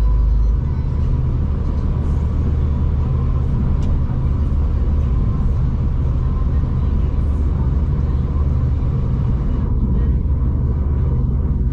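Steady low rumble and hum of a V/Line passenger train heard from on board. The very deepest part of the rumble drops away under a second in.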